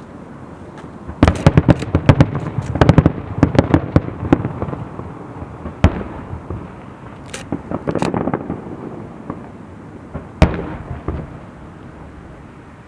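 Aerial fireworks shells bursting: a rapid cluster of sharp bangs and crackles for a few seconds, then single booms spaced a second or two apart, each followed by a rolling echo.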